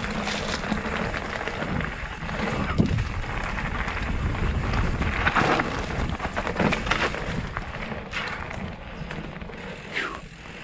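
A Santa Cruz Chameleon hardtail mountain bike on 27.5+ tyres riding fast down a dirt trail, heard from a helmet-mounted camera: tyres rolling over dirt and rock, and the bike knocking and rattling over bumps, with wind noise on the microphone throughout.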